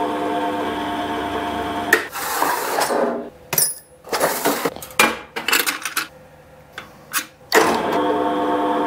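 Ajax pillar drill running with a steady motor hum that stops about two seconds in. Then come scattered clicks and rattles of drill bits and their boxes being handled in a metal drawer. The drill's hum starts again near the end.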